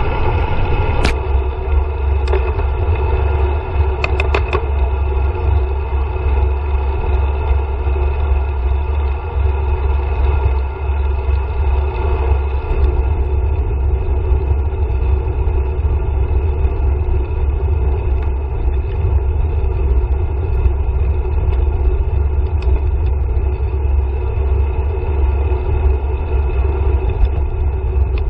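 Wind buffeting a handlebar-mounted action camera's microphone, with road rumble from a road bike rolling along at speed. A few short clicks come in the first five seconds.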